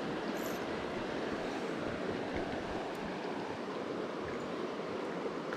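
Flood-swollen creek water rushing steadily: a constant, even wash of moving water, running high and fast after heavy rain.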